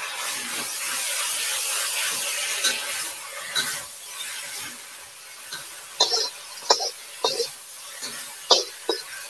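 Rice noodles sizzling in a hot wok as sauce goes in and they are tossed, a steady hiss for the first few seconds. In the second half a metal spatula scrapes and knocks against the wok in several sharp strikes.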